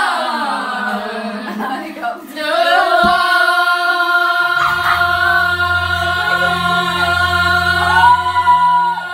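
A group of girls singing loudly together, holding long notes; a low steady bass tone comes in about halfway and drops out near the end.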